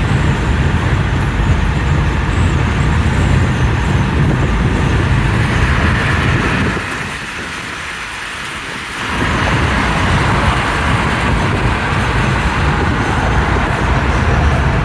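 Storm wind buffeting the microphone: a steady rush with a heavy low rumble that drops away for about two seconds midway, then returns.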